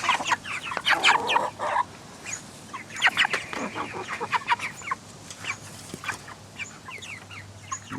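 A flock of chickens clucking, with many short, high chirps scattered through and a few louder bursts of calls about one and three seconds in.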